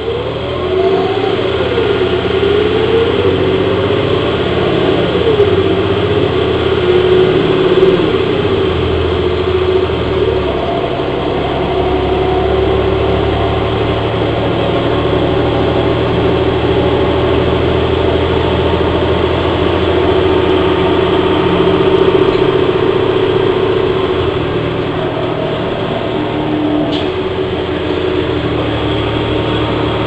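Orion VII NG transit bus's Cummins ISL diesel engine and Allison B400R automatic transmission under way. The engine and drivetrain note climbs and drops in pitch several times in the first ten seconds, as the transmission shifts up while the bus accelerates. It then holds a steady note while cruising.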